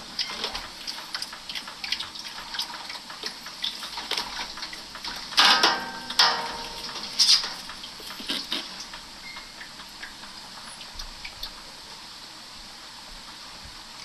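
Top-load washing machine in its final spin, with water spattering and dripping inside the spinning tub. There are a few louder splashes and knocks about five to seven seconds in, then it settles to a steadier spin noise.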